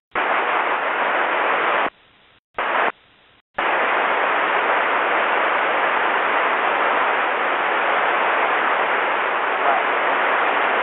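Radio scanner hiss on an air-band channel: the squelch opens in two short bursts of static, then stays open with steady hiss from about three and a half seconds in, with no voice coming through.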